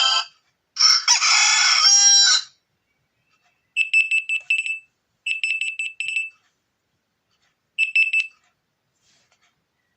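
Alarm tones from a Xiaomi Mi A2 Lite phone's speaker. First a recorded rooster crow, about a second and a half long, begins about a second in. Then come three bursts of rapid, high-pitched electronic beeping.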